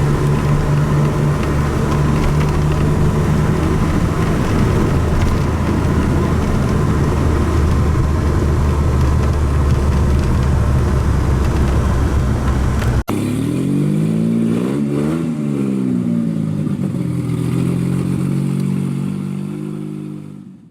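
1981 DeLorean DMC-12's V6 engine running through a stainless steel SPEC I exhaust with a steady low note. After a sudden cut about two-thirds of the way in, the engine note rises and falls once, then settles and fades out near the end.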